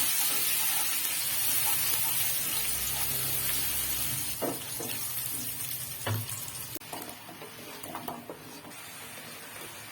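Food sizzling in hot oil in a wok or pan while it is stirred, with a few knocks and scrapes of the spatula against the pan. The sizzle fades somewhat after about seven seconds.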